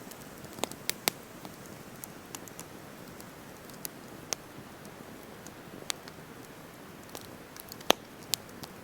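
Wood campfire burning with a steady hiss and irregular sharp pops and crackles, the loudest crack about eight seconds in.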